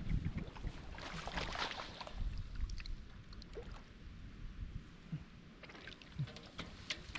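Irregular splashing and sloshing of shallow muddy water, with small crackling splashes.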